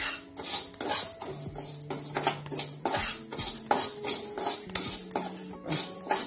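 Dal being stirred and scraped in a dry pan as it roasts, a quick run of short scratchy strokes. Behind it, long held whining tones that shift between a few pitches.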